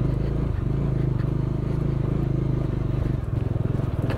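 Single-cylinder engine of a Bajaj Dominar 400 motorcycle running steadily while the bike rides along a rough gravel track, heard from the rider's seat.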